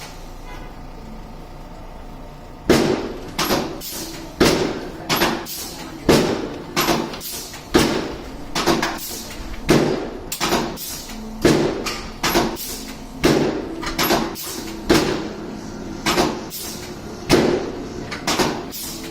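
A quick, uneven series of sharp knocks, about two a second, starting a few seconds in, each with a short ringing tail.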